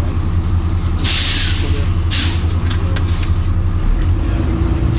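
Volvo B9TL double-decker bus idling with a short, loud "pshhh" of air from its air system about a second in and a weaker one a second later. The hiss is normal on these buses, but on this one it recurs every few seconds instead of every couple of minutes. The engine note deepens near the end.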